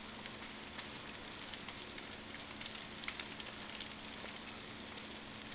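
A large bonfire of felled trees burning, a steady hiss with scattered small crackles and pops.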